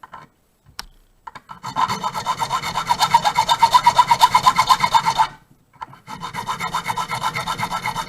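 Hand filing of a key blank, deepening the first two cuts: rapid, even back-and-forth file strokes in two runs with a short pause just past the middle.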